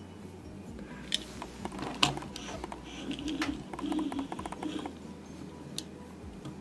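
Light clicks and quick ticking of a small toy car being handled against a tabletop, with a few sharper taps.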